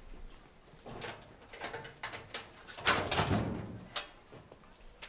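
Metal school locker being unlatched and pulled open: a few light clicks, then a sharp metallic clatter about three seconds in and one more click about a second later.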